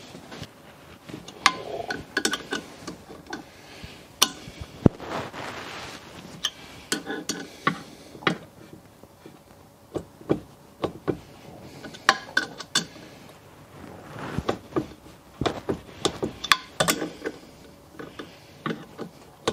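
Wrench clicking and small metal knocks, irregular and sharp, as two bolts on a Briggs & Stratton engine's connecting rod are tightened to 100 inch-pounds.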